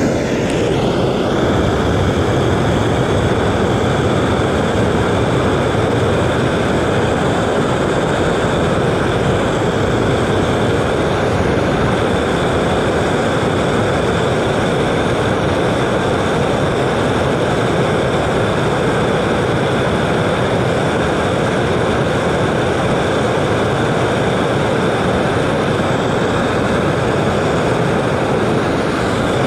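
Gas torch flame running with a steady, unbroken rush, heating the connectors on copper pipe so they can be sweat-soldered.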